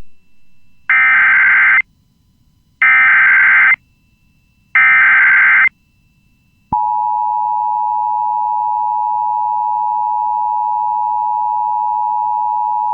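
Emergency Alert System SAME header: three identical one-second bursts of screechy digital data tones about a second apart, followed about seven seconds in by the steady EAS attention tone, which holds on. Together they mark the start of a new emergency alert, here a civil emergency message.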